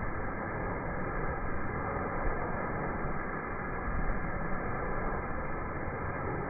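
Sun Joe electric pressure washer running steadily: an even rushing noise with a faint hum, without a break.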